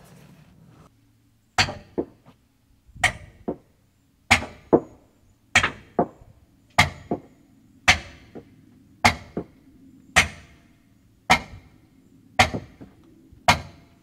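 Hammer striking a long steel wrench fitted on one of the big bolts of a Ford 555 backhoe's heavy cast oil pan, driving it to break the bolt loose. About a dozen sharp metallic strikes, roughly one a second, each ringing briefly.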